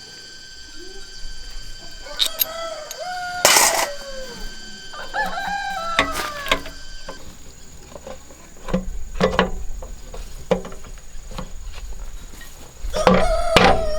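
Rooster crowing three times, each crow rising, holding and falling away, with scattered sharp knocks between them.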